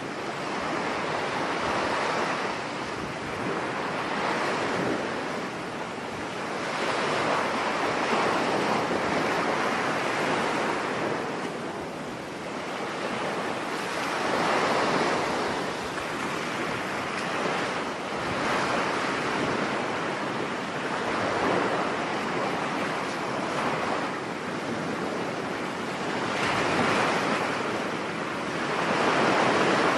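Rough sea surf breaking on a beach in stormy wind, the waves surging in and falling back every few seconds.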